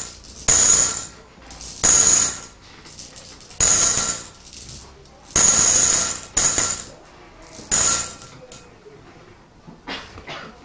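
Small hard round pieces dropped into a glass bowl, clattering and ringing against the glass in six sharp rattles a second or two apart, with a few faint clicks near the end.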